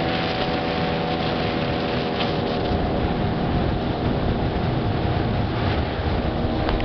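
Motorboat engine running steadily under way, with wind and water noise over it.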